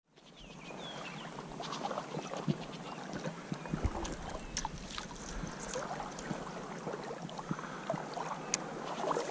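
River water sloshing and lapping close to the microphone, with scattered small splashes and clicks.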